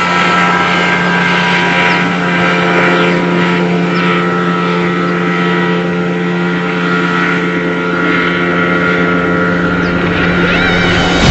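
Motorboat engine running at a steady speed, giving an even, unchanging drone.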